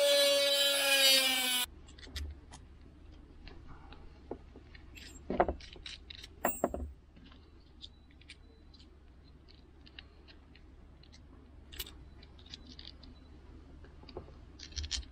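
A small high-speed rotary tool cutting plastic trim runs with a steady high whine, then slows and stops about a second and a half in. Scattered light clicks and knocks follow, a few of them louder.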